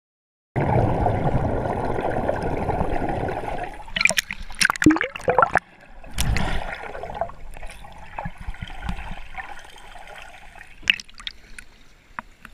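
Underwater water noise heard through a submerged action camera. It starts abruptly about half a second in with a loud, even rush, turns to bubbling and gurgling around four to six seconds in, then settles to a quieter rush, with a few splashes near the end as the camera breaks the surface.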